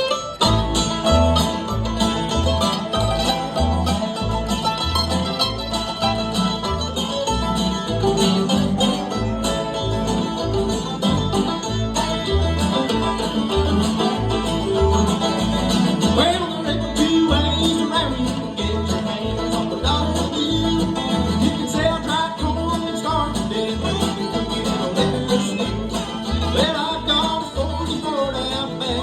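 Bluegrass band playing an instrumental opening, with banjo and guitar picking over steady bass notes about twice a second.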